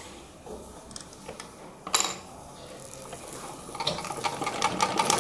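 Sewing machine being handled with cloth under its foot: a few small clicks and one sharp click about two seconds in. Near the end the machine starts stitching, a rapid even ticking that grows louder.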